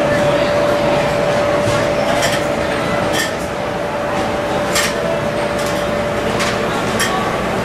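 Steady mechanical hum and rush with one constant mid-pitched tone running through it, and a handful of light, scattered clinks like dishware or metal utensils.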